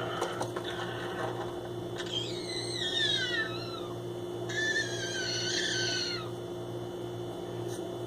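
Green-cheeked conure making its weird signature noise: two long, whiny calls, each falling in pitch, about two seconds in and again midway. A steady low hum runs underneath.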